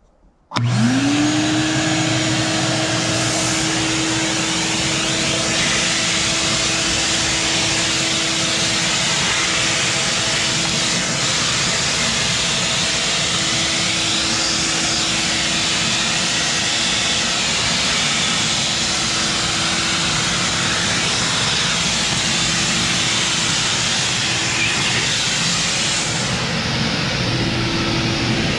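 Craftsman 12-gallon, 6 hp wet/dry shop vac switching on: the motor spins up within a second to a steady whine over loud rushing air, and runs on at a constant level.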